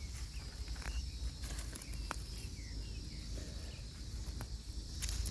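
Weeds being pulled up by hand from dry garden soil: scattered short crackles and snaps as roots tear loose, over a steady high insect buzz and a low rumble.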